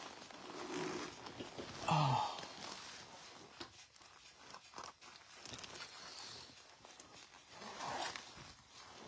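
Close rustling and rubbing of a leather jacket and motorcycle helmet gear as the helmet and headset are pulled off, with scattered small clicks and a brief louder rub about two seconds in.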